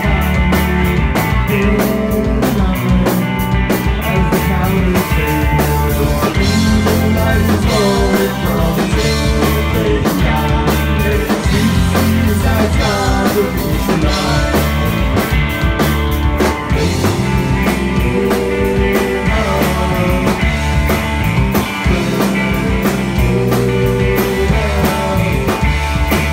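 Live rock band playing at full volume: distorted electric guitar, electric bass and a drum kit with steady cymbal strikes, with a male voice singing over the top.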